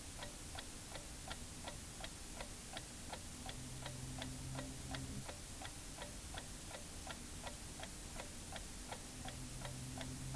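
Steady clock-like ticking, about three ticks a second, with faint low held notes sounding underneath now and then, as the quiet intro of a pop song.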